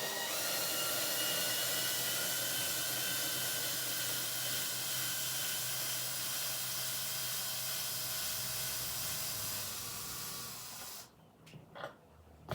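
Electric drill-driver running steadily with a whine and hiss as it backs a screw out of the armchair's wooden frame, then stopping about eleven seconds in.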